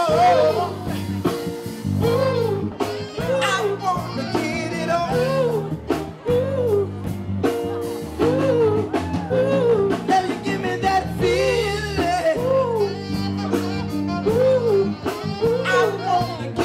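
Dance music played loud for dancing: a steady drum beat and a bass line under a short rising-and-falling melodic phrase that repeats about once a second.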